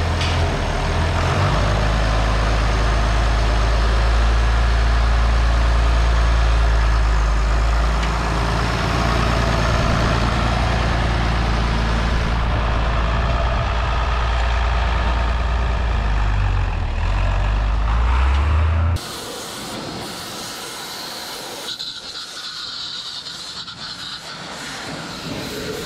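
International 686 tractor engine running steadily while the tractor is driven. About 19 seconds in it cuts off and a quieter, even hiss of a pressure washer jet spraying the tractor's axle housing takes over.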